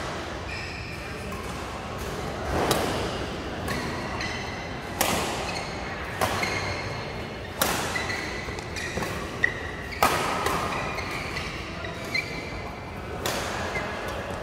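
Badminton rackets hitting a shuttlecock in a doubles rally: about eight sharp smacks spaced a second or two apart, echoing in a large hall, with short high squeaks of court shoes on the mat in between.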